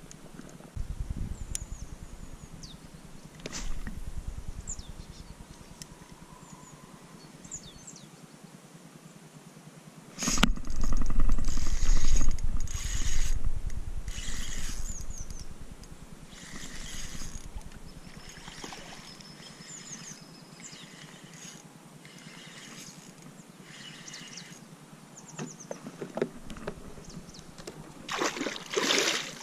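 A fishing kayak being paddled on calm water: paddle strokes, water movement and gear knocks. A louder stretch of low rumble comes about ten seconds in, and sharp splashy sounds come near the end.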